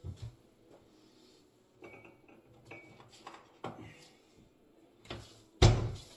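Kitchen dishes and containers being handled and set down on a counter: scattered knocks and clicks with a couple of short ringing clinks, and one loud knock near the end.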